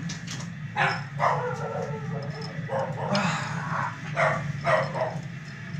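A dog barking several times in short calls, over a steady low machine hum.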